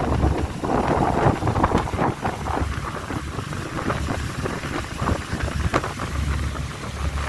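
Motorboat under way at about 10 knots: wind buffets the microphone over a steady low engine rumble and the rush of water.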